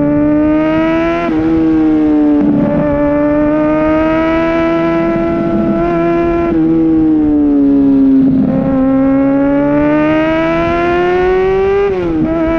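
Kawasaki Ninja ZX-6R inline-four sport bike engine running under way. Its pitch climbs slowly and drops sharply three times: about a second in, around six and a half seconds in, and near the end.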